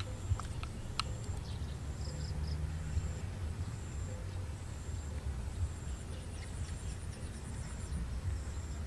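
A steady low rumble with insects chirping in high, rapid trills. A few light clicks of bamboo trap sticks being handled, the sharpest about a second in.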